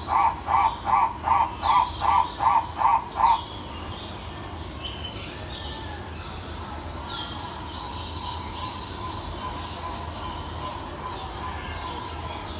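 A bird calling a quick series of about nine loud, evenly repeated notes, about two and a half a second, which stops a little over three seconds in. After that come fainter high chirps and short falling calls of other birds over a steady forest background.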